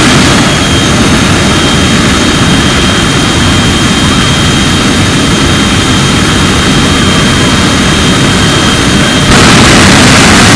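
Jet engine mounted on a show fire truck running at high power, a steady loud rush with a thin high whine. About nine seconds in it surges louder as a fresh blast of flame shoots from its exhaust.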